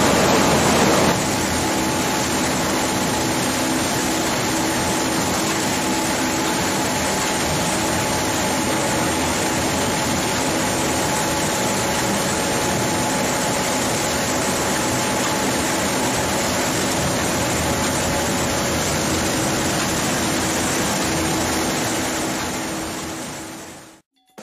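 Processing machinery running steadily: an even rushing noise with a faint low hum, fading out near the end.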